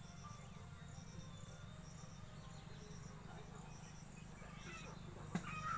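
Insects chirping outdoors: short high-pitched chirps repeating in little groups, over a steady low rumble. A sharp click comes about five seconds in.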